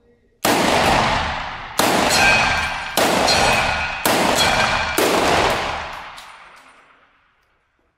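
Izhmash Saiga 12 semi-automatic 12-gauge shotgun firing five shots about a second apart, each echoing off concrete walls, the echo dying away after the last shot with a few faint clicks.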